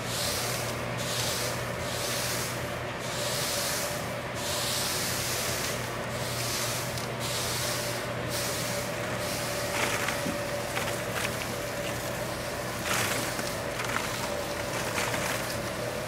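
Calendula flower heads rustling as they slide and tumble over a stainless steel tray, in surges about once a second, then thinning to a few light crackles in the second half. A steady hum runs underneath.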